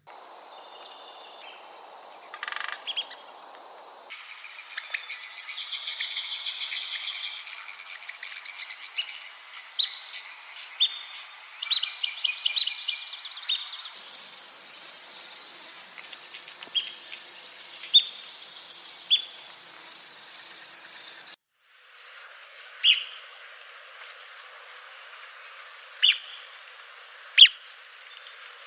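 Red-cockaded woodpeckers calling: short, sharp, high squeaky notes, some single and some in quick chattering runs, with a buzzy rattle about six seconds in. A faint steady high hum runs underneath, and the sound drops out briefly about two-thirds of the way through before the calls go on.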